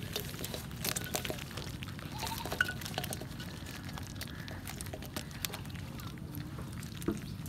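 Freshly caught live fish, snakeheads and climbing perch, wriggling and flapping in a wet metal basin, giving irregular wet slaps, drips and small clicks against the metal.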